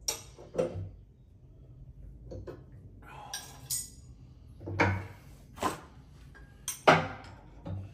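Irregular sharp metallic clanks and knocks, about seven, as V-belts are worked by hand onto a lathe's motor pulley, the loudest near the end.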